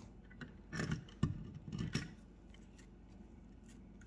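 Stripped copper electrical wires being handled and twisted together by hand: a few light scrapes and clicks of wire and insulation in the first two seconds, then quieter.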